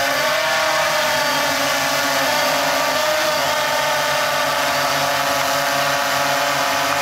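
Hexacopter's electric motors and propellers humming in flight: a steady, multi-toned drone whose pitch wavers slightly in the first few seconds as the craft manoeuvres, then holds steady.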